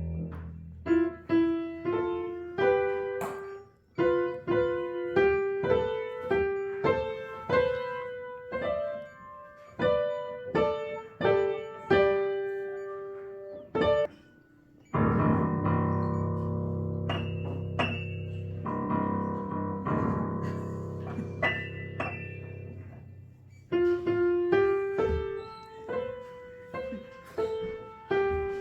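Background music of solo piano: a melody of single struck notes, each fading after it is played, giving way to held chords for several seconds around the middle before the single-note melody returns.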